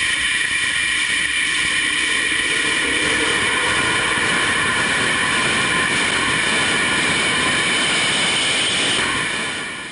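Hydrogen peroxide rocket thrusters of NASA's Mighty Eagle robotic prototype lander firing in a steady loud hiss as it descends onto its landing pad. The sound fades out near the end.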